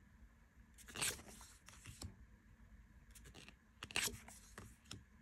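Tarot cards being slid one at a time off the top of a handheld Modern Love Tarot deck, each a short papery scrape, with the loudest about a second in and about four seconds in and lighter handling rustles between.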